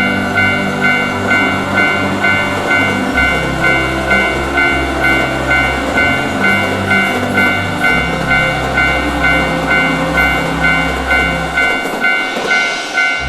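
Japanese level-crossing warning bell ringing steadily, a little over two strikes a second, while a train passes, with low tones shifting in steps underneath.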